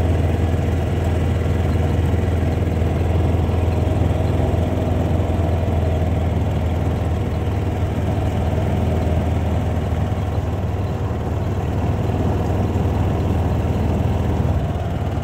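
Kawasaki Mule side-by-side's engine running steadily at low speed with a deep hum, along with tyre and body noise from driving on a gravel road.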